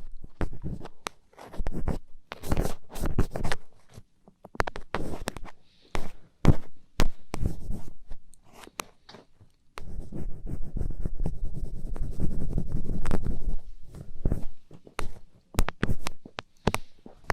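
ASMR ear-cleaning sounds: an ear pick scratching and scraping in quick, irregular strokes, with a longer stretch of steady rubbing a little past halfway.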